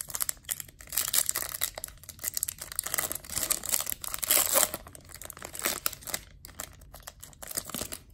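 Foil wrapper of a Topps Chrome baseball card pack being torn open and crinkled by hand, a dense run of crackling with the loudest tearing about a second in and again around four seconds.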